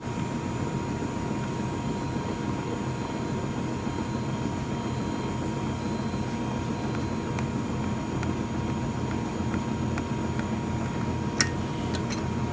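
Commercial ice cream freezer running with a steady motor drone while fresh ice cream is dispensed from its spout into a tub. A few light clicks come near the end.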